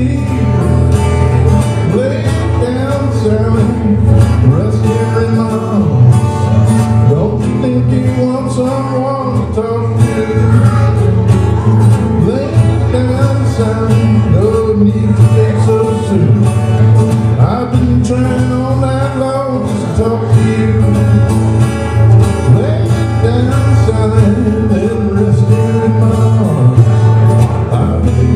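A man singing a country-style song, accompanied by guitar.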